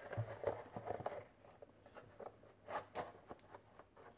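Luger P08 pistol being pushed into a stiff leather holster: a series of short, irregular leather scrapes and soft knocks of the pistol against the leather, with the holster flap being handled near the end.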